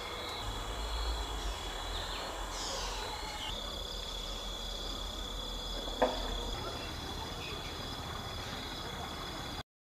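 Steady, high-pitched chirring of crickets and other insects at dusk, with a few brief sliding calls in the first few seconds and a single sharp knock about six seconds in; the sound cuts off just before the end.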